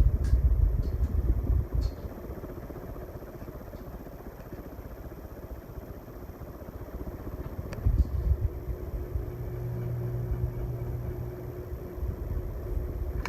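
Evergo 48-inch ceiling fan running on high speed with a steady motor hum. A low rumble is heaviest in the first two seconds and again about eight seconds in.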